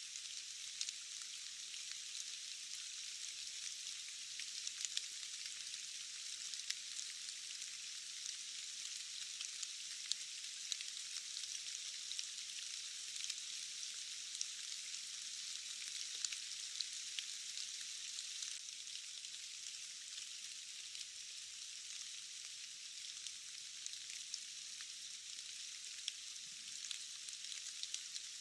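Steady rain: an even, high hiss with no low end, sprinkled with many scattered ticks of individual drops.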